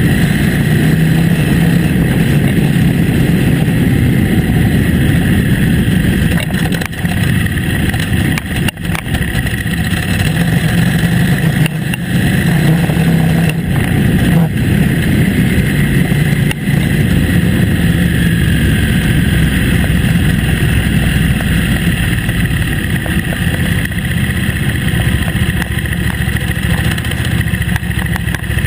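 KTM 950 Adventure S motorcycle's 942 cc V-twin engine running steadily under way on a gravel forest track, briefly easing off a few times.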